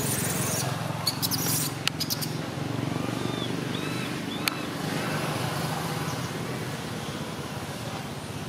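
A motor vehicle engine runs steadily in the background as a low, even hum. A few sharp clicks come in the first two seconds, and a few faint, short high squeaks come around the middle.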